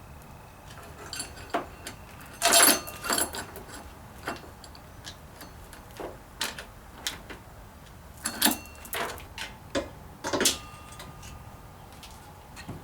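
Steel saw chain and a long guide bar being handled and fitted onto a Stihl 090 chainsaw: scattered metallic clinks and rattles, with a louder clatter about two and a half seconds in and a few short ringing clanks later.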